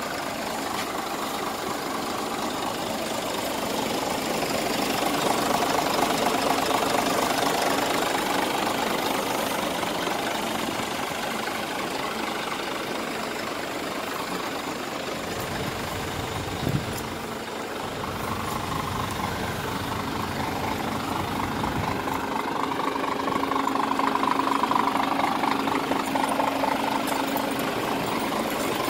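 Scania R450 tractor unit's diesel engine idling steadily, with a light diesel clatter, louder at times; a single short thump about seventeen seconds in.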